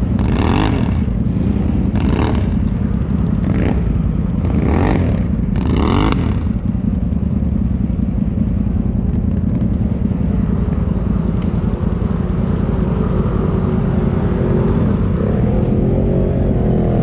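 ATV engine running with about five short revving surges in the first six seconds, then climbing again in pitch near the end, as the quad is driven up a snowy, icy slope.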